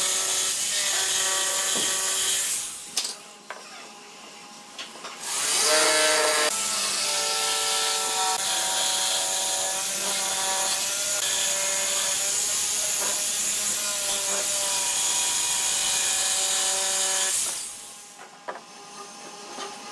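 Electric jigsaw cutting a curve through a wooden board: a steady motor whine over the rasp of the reciprocating blade. It stops for about two seconds around three seconds in, runs again, and stops near the end as the cut is finished.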